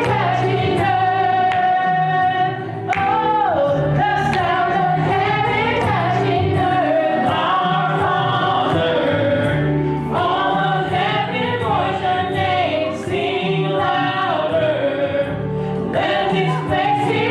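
Gospel choir singing with accompaniment, long held notes sliding between pitches, with short breaks between phrases.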